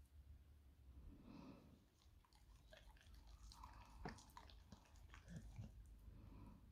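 Staffordshire Bull Terrier faintly chewing and biting raw steak taken from a hand, a scatter of small mouth clicks and smacks.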